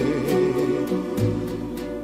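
Live music: a singer holding notes with vibrato over instrumental accompaniment, with a light, steady beat of ticks several times a second.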